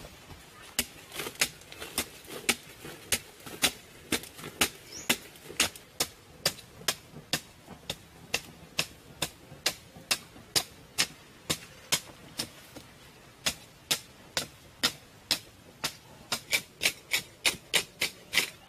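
Hand digging tool striking hard ground over and over, about two to three sharp strikes a second, with one short pause about two-thirds of the way through.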